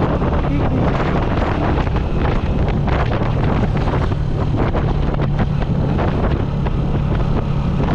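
Small motorcycle engine running at a steady cruise, with heavy wind buffeting on the microphone.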